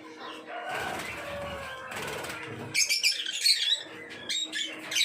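A flock of peach-faced lovebirds chirping and squawking in a cage, with a burst of loud, shrill chirps about three seconds in.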